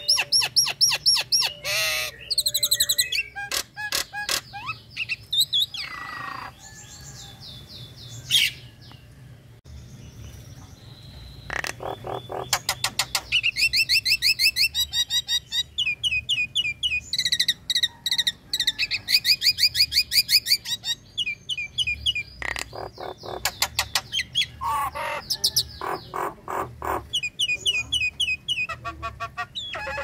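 Caged common myna (jalak nias) chattering: long runs of rapid, repeated harsh notes mixed with whistles, in bursts with a quieter stretch of several seconds about a third of the way in.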